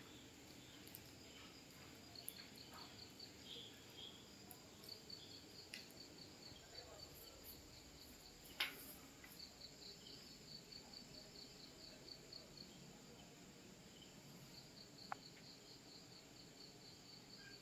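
Faint insect chirping: short trains of rapid, high pulses that stop and start again, over near-silent room tone. One sharp click about eight and a half seconds in.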